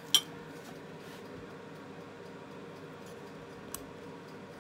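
Metal cutlery clinks once, sharply, against a glass plate just after the start, with a fainter tick near the end, over a steady low room hum.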